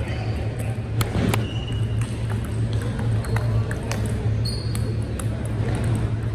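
Table tennis rally: the ping-pong ball clicks irregularly off the paddles and table, with a few short high squeaks, over a steady low hum of a large hall.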